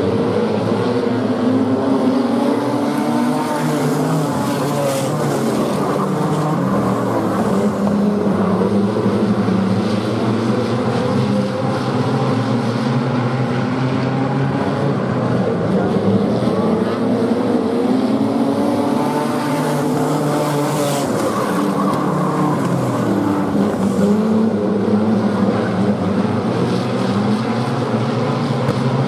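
Several wingless sprint car engines running together at race speed, their pitch rising and falling in waves as the cars accelerate and lift around the oval.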